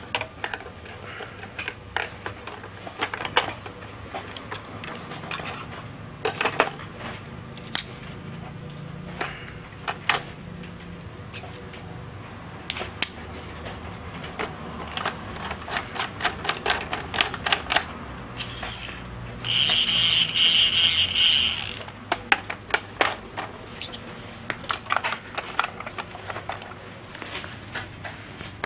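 Hard plastic toy parts clicking and knocking as a toy tool truck's screws and pieces are handled and fitted, in irregular runs of quick clicks. A little past the middle a high buzz from the toy power drill runs for about two seconds and then stops.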